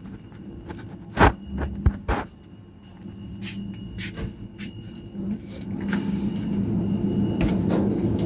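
A few sharp knocks and clatters of a yogurt tub being taken from a supermarket chiller, then a steady low hum with background noise growing louder from about five seconds in.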